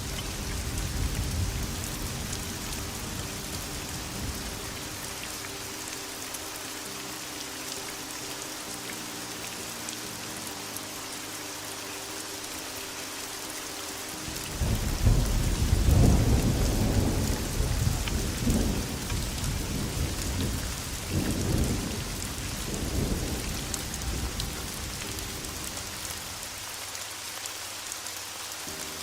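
Steady heavy rain hissing, with thunder rumbling. A long roll comes in about halfway and swells and fades several times before dying away.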